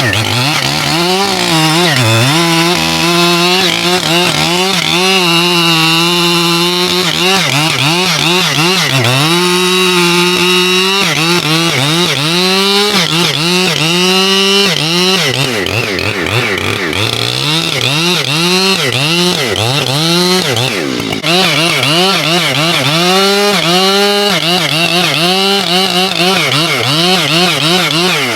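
Husqvarna 592 XP two-stroke chainsaw cutting through a large poplar stem at high revs, its engine pitch dipping and recovering over and over as it works the cut, the dips coming roughly once a second in the second half.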